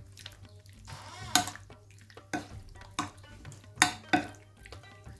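Chicken being mixed into a thick yogurt-and-spice marinade in a bowl: wet stirring with about five sharp knocks of a utensil against the bowl, the loudest about a second and a half in and near four seconds in.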